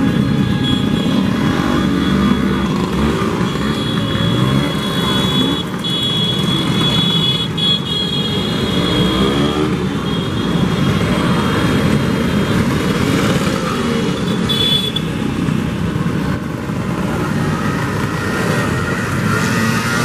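A stream of Vespa and Lambretta scooters riding past one after another, their small engines running continuously, each rising and falling in pitch as it passes.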